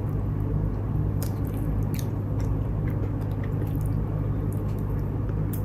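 A person chewing a bite of a kiwi-and-cucumber bagel sandwich: wet chewing with scattered small crisp clicks, over a steady low hum.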